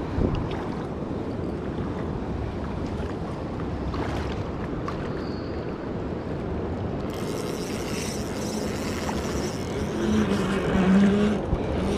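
Steady rush of a fast river current with wind rumbling on the microphone.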